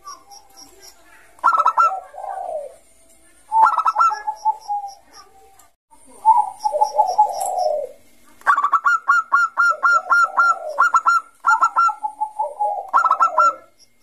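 Bangkok-strain zebra dove (perkutut) cooing: about six phrases of rapid staccato notes with short pauses between, the longest lasting a couple of seconds near the middle. Faint high chirping of another bird sounds between phrases.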